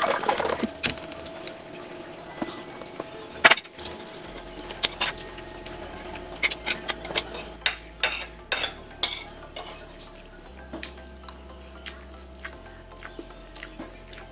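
Water poured from a plastic bottle into a glass for about the first second, then a metal spoon and fork clinking and scraping on a china plate as food is eaten, with many sharp irregular clicks.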